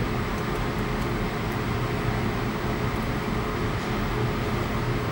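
Steady mechanical hum of room machinery, with several steady low tones in it.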